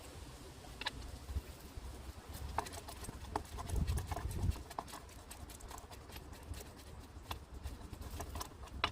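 Light, scattered clicks and taps of hand tools and sockets on the engine cover's bolts, with a low rumble about four seconds in.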